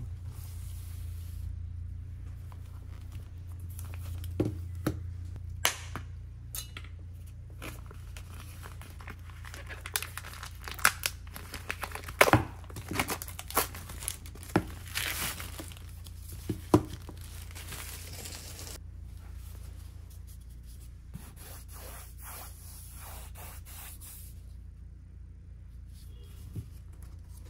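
Clear plastic wrapping being torn and peeled off a canvas, crinkling and crackling in irregular bursts with sharp clicks, busiest in the middle and thinning out toward the end, over a steady low hum.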